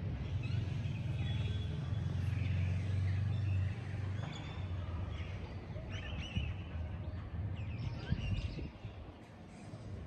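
Outdoor ambience with birds chirping now and then. A low rumble runs through the first few seconds, then drops away.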